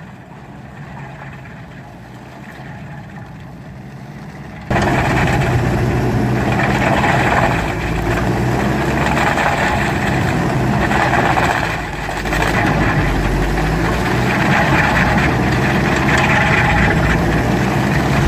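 Heavy land-clearing machine's engine running, quieter at first; about five seconds in the sound jumps abruptly to loud, dense engine and mechanical noise that carries on.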